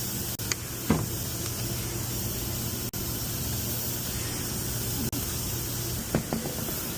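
Steady broad hiss of shop background noise with a low hum, broken by a few light knocks about a second in and again near the end.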